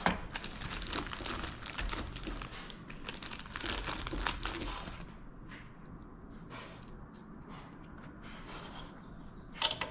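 Packaging crinkling and rustling for about five seconds while small propeller-hub hardware is handled, then a few light clicks of a metal bolt and washer.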